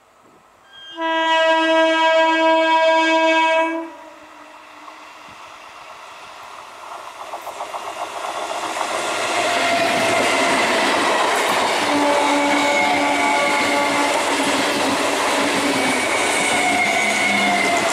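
An old Indian Railways electric multiple unit (EMU) local train sounds its horn about a second in, one steady blast of about three seconds. Then the train's running noise builds from about six seconds in to the steady clickety-clack of its wheels on the rails as the coaches pass close by.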